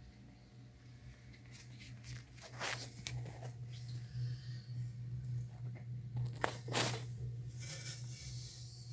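A few short scrapes and rustles from parts being handled, the loudest about two and a half seconds in and twice around six and a half seconds in, over a steady low hum.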